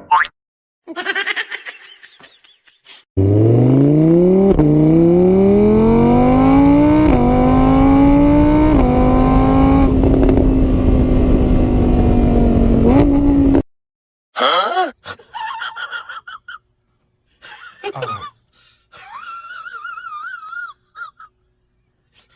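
A motor vehicle engine revving up through the gears. Its pitch climbs, drops back at each of several gear changes, then settles and cuts off suddenly. Before and after it come shorter, quieter warbling calls of varying pitch.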